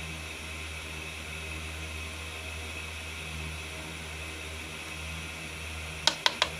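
Steady low hum and hiss, then four quick, sharp clicks near the end.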